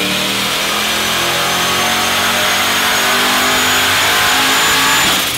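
Turbocharged 6.8-litre LS V8 stroker, built on a cast-iron LQ9 block, running loud at raised revs held fairly steady, with a thin high whine over it.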